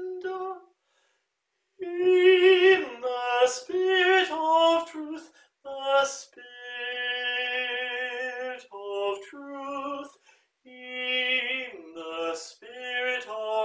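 Slow, sustained choral singing heard through a video call, held notes moving in steps. The sound cuts out completely for about a second near the start, and briefly a few times after.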